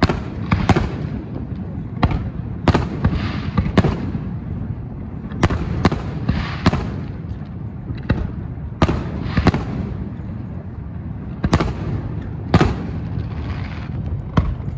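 Fireworks display: aerial shells bursting in an irregular series of sharp bangs, roughly one a second.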